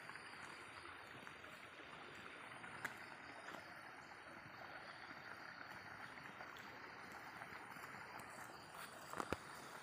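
Steady rush of water flowing through an irrigation canal's sluice gate, with a sharp click about three seconds in and two sharp knocks near the end.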